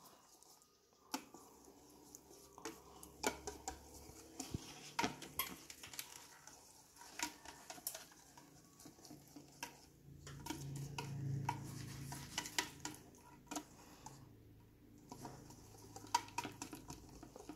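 Red silicone whisk beating waffle batter in a white ceramic dish: quick, irregular soft taps and clicks against the bowl with a wet stirring sound, mixing the batter until no lumps remain.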